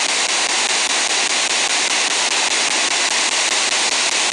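Spirit box radio sweep played through a small Altec portable speaker: loud, steady static hiss with faint regular clicks as it scans through the stations.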